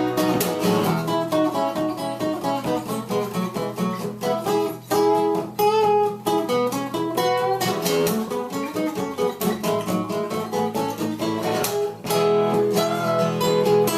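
Acoustic guitar playing the song's fast harmonised lead line in double stops, two notes moving together in quick runs over the chords.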